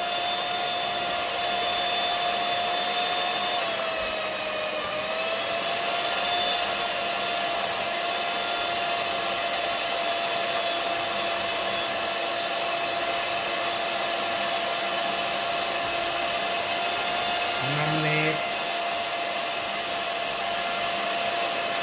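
Small electric hand mixer running steadily with a whine, its beaters whipping matcha, sugar and hot water into foam in a glass. The pitch sags slightly about four seconds in, then recovers.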